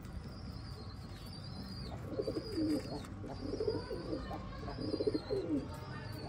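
Birds calling: a high, arched call repeats about once a second, and from about two seconds in, lower warbling coos join it.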